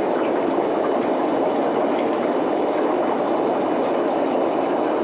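Steady rushing and bubbling of aquarium water and aeration, with faint small ticks.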